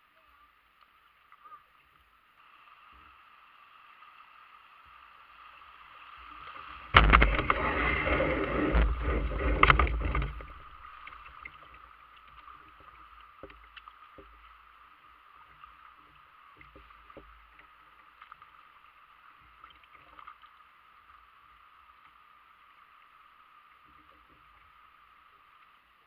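Creek water gurgling and lapping against a plastic kayak hull as it drifts. About seven seconds in comes a louder stretch of splashing and knocking lasting about three seconds, then the faint, steady water sound returns.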